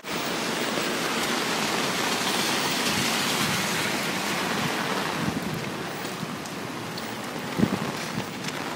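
Rain pouring down on wet pavement and street, a steady hiss, with a couple of short thumps near the end.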